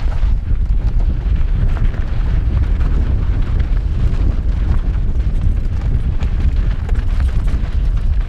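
Wind rushing over a helmet-mounted camera's microphone at downhill speed, with a heavy low rumble, mixed with a mountain bike's tyres crunching over loose rocky gravel and the bike rattling over the rough ground.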